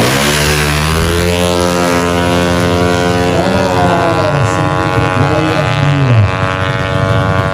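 Tuned 155cc automatic scooter racing engine at full throttle on a drag run. Its pitch drops sharply as it passes at the start, then holds nearly steady at high revs.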